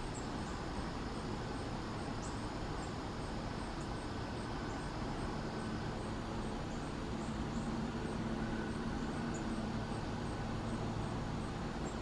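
Steady outdoor background din with a low hum, like distant traffic. Over it a faint, high tick repeats evenly at a little over two a second, and a few short, high chirps are scattered through.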